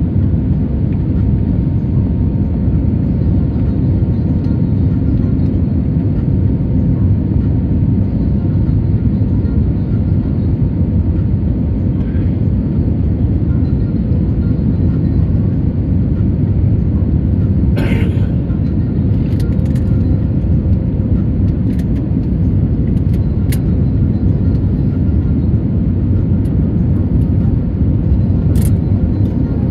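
Airliner cabin noise during the descent: a steady, even roar of the jet engines and airflow heard from a window seat, with a faint steady hum. A few brief clicks sit over it, the clearest a little past halfway.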